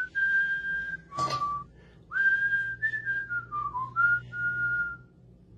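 Clear whistled notes in a short tune: long held tones, one phrase sliding down in steps, broken by a brief sharp chirp about a second in.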